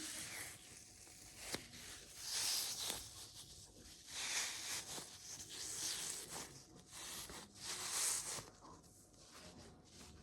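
Rustling and crinkling of plastic packaging around a squishy toy as it is handled, in several swells of hiss-like noise, the loudest about two, four and eight seconds in.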